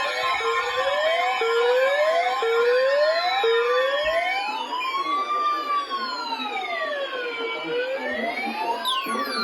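Electronic sirens, several layered. A quick rising whoop repeats about once a second, then about four seconds in it changes to a slow wail rising and falling over several seconds. A steady tone runs underneath.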